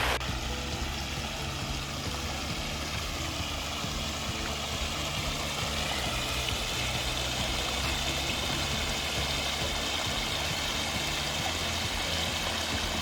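Water spilling steadily down a pondless waterfall's rock cascade, with a low steady engine hum underneath.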